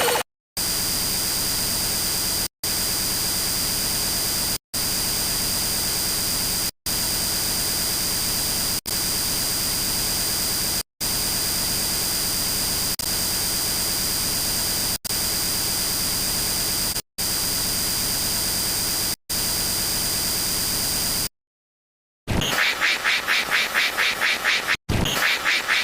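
A static-like hissing sound effect with steady high whistling tones, played in about ten two-second pieces separated by short silent gaps. After a second of silence near the end, a different buzzy sound pulses about four times a second.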